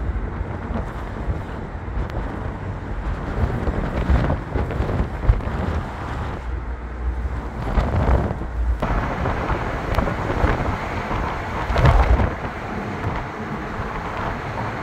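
Wind rushing over an open-top convertible at driving speed, buffeting the microphone with a heavy, uneven low rumble, mixed with road noise.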